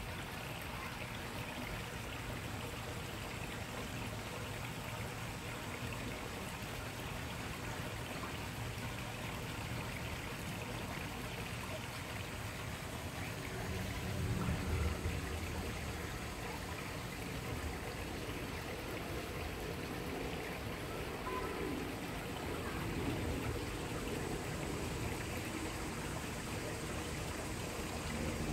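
Steady rushing background noise like running water, with a louder low rumble about halfway through.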